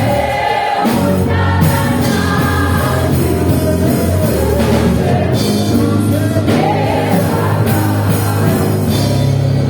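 Live gospel worship song: singers with a band backing them.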